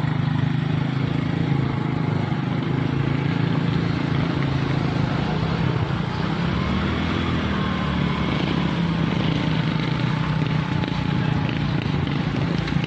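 Street traffic: motorcycle and car engines running with a steady low hum, with voices in the background.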